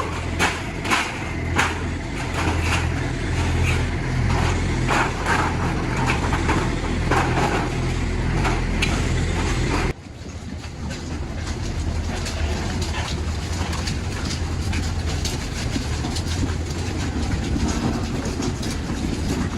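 A steady low mechanical hum, like a motor or fan running, with repeated knocks and clatter, heaviest in the first half. The sound breaks off abruptly about halfway and picks up again at a similar level.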